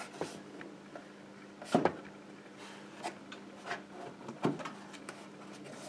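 Wooden caddy body knocking against its wooden base panel as it is lowered and its tabs are slotted into place: a few light taps, with the loudest knock about two seconds in and another about four and a half seconds in.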